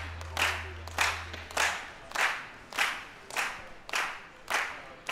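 Spectators clapping together in a slow, steady rhythm, a little under two claps a second, each clap echoing in the hall: a crowd clapping in unison to urge a shooter on.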